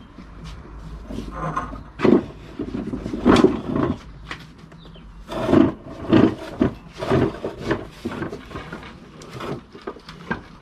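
Wooden pergola frame being shifted by hand: a run of irregular wooden knocks and scrapes, loudest about two, three and a half, and five and a half to six seconds in.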